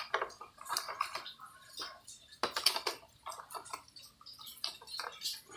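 Plastic toy packaging and accessories being handled, with irregular crinkles, rustles and light clicks.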